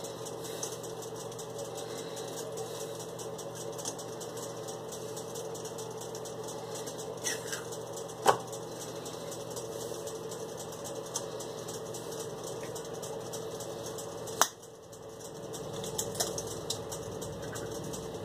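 Steady machine hum in a small room, broken by a few sharp clicks and knocks, the loudest about 8 and 14 seconds in. After the last click the hum drops for a moment and then comes back stronger.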